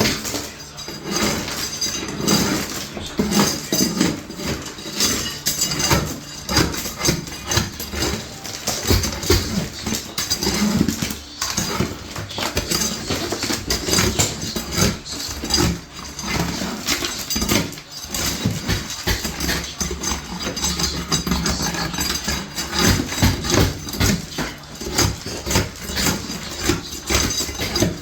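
Demolition work: a steady stream of irregular knocks, scraping and clattering as old flooring and debris are torn out and pulled down.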